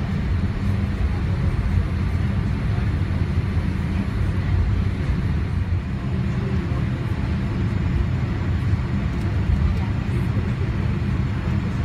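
Steady engine and airflow rumble of a Boeing 787 Dreamliner heard inside the passenger cabin, deep and even with a hiss over it.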